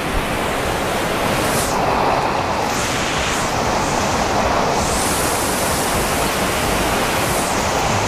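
Waterfall cascading down over rock slabs, a steady rushing of water.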